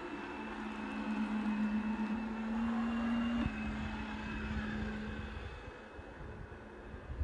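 Electric drive motor of a radio-controlled model submarine running at the surface, a steady hum. It rises a little in pitch before dropping about three and a half seconds in, then fades out a couple of seconds later.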